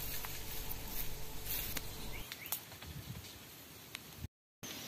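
Faint outdoor hiss with scattered light clicks and rustling, as of movement through dry bamboo litter, broken by a sudden brief gap of silence near the end.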